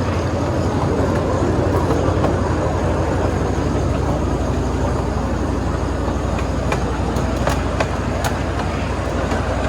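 Miniature 7¼-inch gauge train running along the track: a steady rumble, with a few sharp clicks in the second half.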